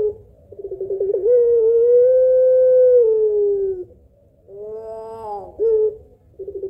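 Puter pelung, a domestic collared dove, cooing its long call. A quick rolling stutter swells into one long drawn-out note lasting about two and a half seconds. About four and a half seconds in comes a shorter wavering coo that falls in pitch, and the rolling start of the next call follows near the end.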